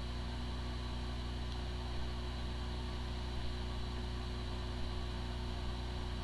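Hard drive spinning with a steady hum and a few faint ticks. It sounds like a healthy drive, but it has disk firmware corruption and the computer cannot detect it.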